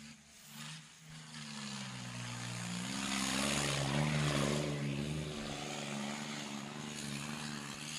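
John Deere 5310 tractor's diesel engine working hard under heavy load as it drags a disc harrow, with black smoke pouring from the exhaust. Its drone builds over the first few seconds, then holds steady.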